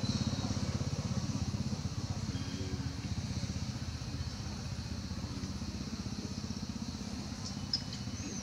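A small engine running steadily with a rapid low pulsing, easing off slightly over the few seconds.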